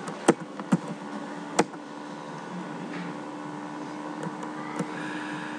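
A few separate computer keyboard key presses, sharp single clicks, the loudest three in the first two seconds and fainter ones later, over a steady hum.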